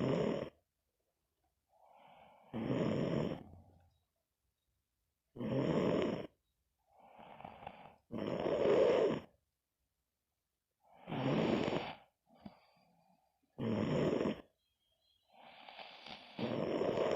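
Snoring in a steady rhythm: a snore about every three seconds, about seven in all, with softer breaths between them.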